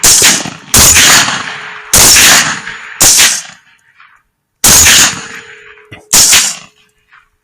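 A volley of rifle shots at feral hogs: six loud shots over about six seconds at uneven gaps, each trailing off in an echo.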